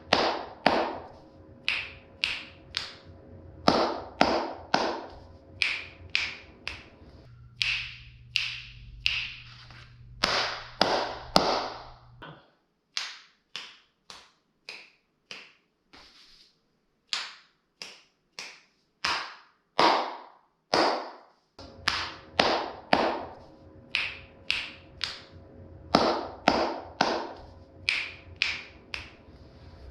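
Single hand claps, dozens of them at roughly one or two a second, each followed by a short echo in the room: a clap test of the room's reverberation with felt sound panels on the walls. An echo is still audible, though the room is judged probably a lot better.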